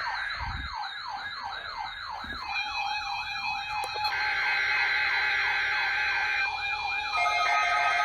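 Several weather alert radios sounding their alarms together for a NOAA Weather Radio weekly test: a siren-like wail falling in pitch about three times a second, joined a couple of seconds in and again about four seconds in by steady alarm tones, so that the sound grows louder.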